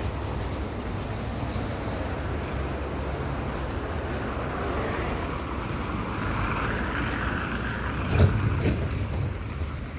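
Street traffic passing on a wet road, a steady low rumble with one vehicle swelling louder and fading about five to eight seconds in. A short thump just after eight seconds.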